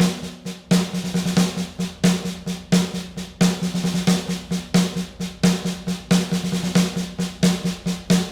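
Live band music led by a drum kit playing a steady beat, with a loud hit about every two-thirds of a second and lighter snare strokes between, over a held low tone.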